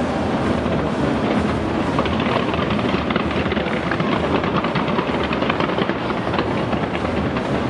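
A fireworks barrage fired from a skyscraper: a dense, unbroken crackle of countless small bursts over a low rumble, steady in loudness.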